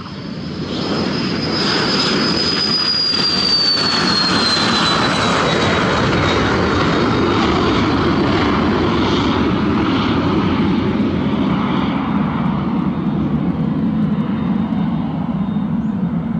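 Embraer Phenom 100 business jet's twin turbofan engines at takeoff power as it rolls down the runway and climbs away: a loud jet roar that swells about a second in, with a high whine that drops in pitch a few seconds in as the jet passes, then slowly fades near the end.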